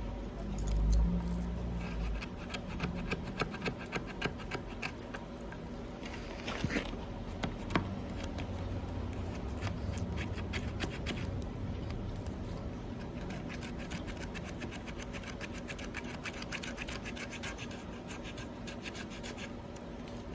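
CRKT Fossil folding knife scraping wood in rapid, repeated rasping strokes, with a few sharper clicks partway through.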